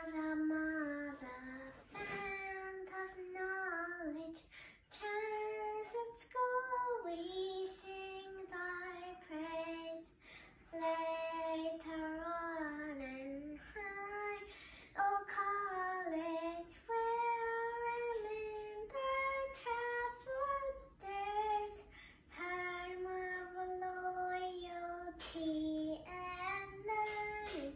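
A young girl singing solo and unaccompanied, in phrases with short breaks between them.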